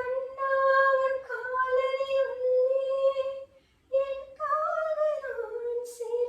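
A woman singing unaccompanied, holding long, steady notes, with a short pause for breath a little past the middle and a falling phrase near the end.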